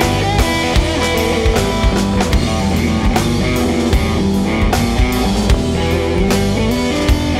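Live blues-rock band playing an instrumental passage: a semi-hollow electric guitar plays over a drum kit keeping a steady beat.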